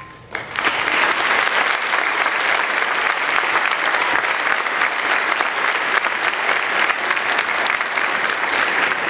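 Audience applauding, starting suddenly about half a second in and then holding steady, just after the last notes of a piece die away.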